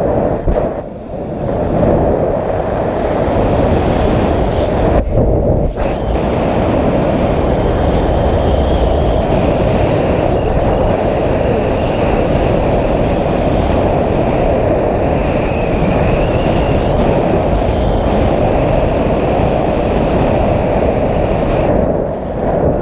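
Steady rush of wind over the microphone as the paramotor glides with its engine off, easing off near the end as the pilot touches down.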